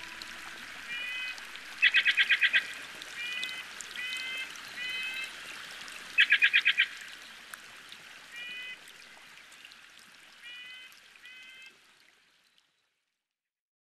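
Bird calls over a steady hiss like running water: two loud rapid bursts of about seven quick notes, and short two-note calls scattered between them. Everything fades out near the end.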